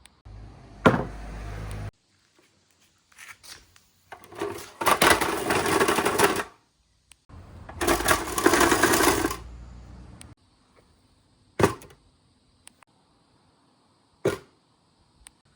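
Glass marbles rolling and rattling along a marble-run track in two long runs, with sharp single clacks of marbles striking or dropping about a second in and twice near the end.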